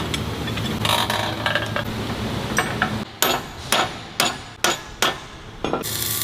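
Workshop noise, then a hammer striking metal six times at about two blows a second.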